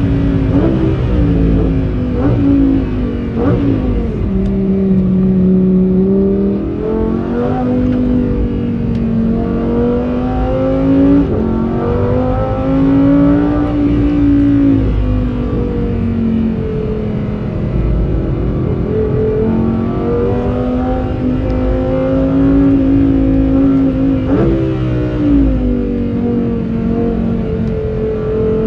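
Lamborghini Huracán Performante's V10 engine on its stock exhaust, driven hard: the engine note climbs steadily in pitch under acceleration and falls away again, with a few sudden upward jumps in pitch.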